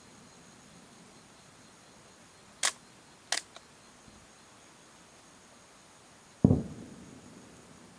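Two sharp cracks, then the deep boom of a firework shell bursting, echoing as it fades.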